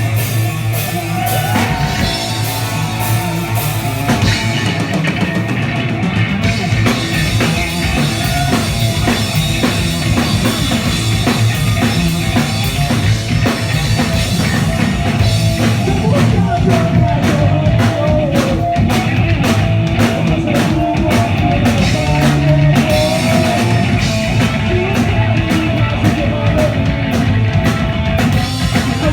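A punk rock band playing live: distorted electric guitars, bass and a fast, steady drum beat with crashing cymbals, and shouted vocals at times.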